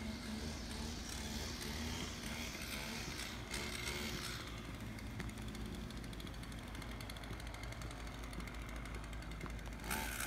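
Residential street ambience with a vehicle engine running steadily in the background.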